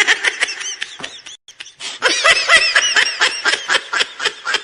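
High-pitched giggling laughter, a meme laugh sound effect: rapid short pulses of laughter in two runs, a brief one at the start and a longer one after about a second's pause.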